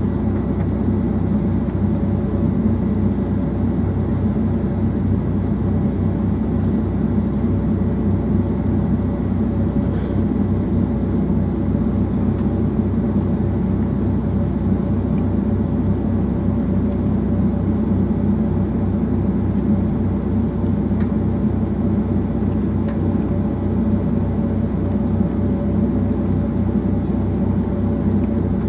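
Steady cabin noise inside a Boeing 757-200 taxiing: the jet engines at taxi power, a low rumble with a steady hum over it.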